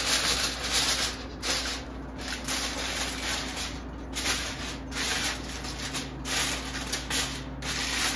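Sheet of aluminium foil crinkling as hands press and tuck it loosely over a roasting pan, in spells with brief pauses.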